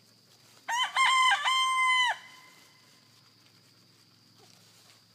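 A chicken crowing once, close by: a few quick short notes then one long held note, lasting about a second and a half.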